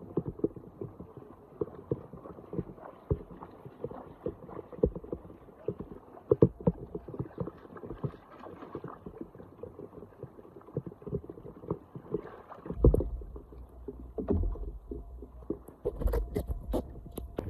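Floodwater splashing and sloshing in dense, irregular bursts. Low rumbles, likely wind or handling on the microphone, come about two-thirds of the way through and again near the end.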